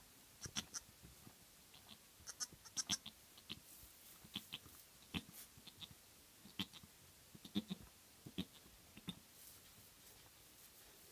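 Pygora doe licking her newborn kid clean: a scattered string of short wet licking and smacking sounds, with a few soft low calls from the goats.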